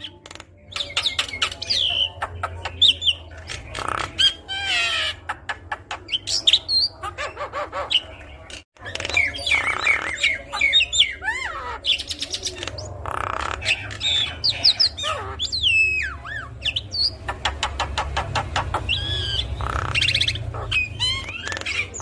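Javan myna (jalak kebo) singing a long, varied song. It mixes whistles that glide up and down, harsh chattering notes and fast rattling click-trains, with a brief break about nine seconds in.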